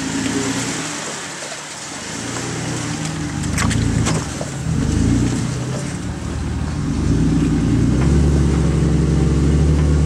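Jeep Wrangler JK engine working at low speed as it crawls over boulders, its revs rising and falling with the throttle. There are a couple of sharp knocks about three and a half to four seconds in. The engine gets louder and steadier in the last two seconds.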